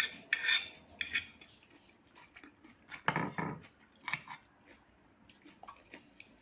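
A fork clinking and scraping against a salad bowl, with crunchy chewing of raw salad vegetables, in scattered short clicks and crunches. The loudest burst comes about three seconds in.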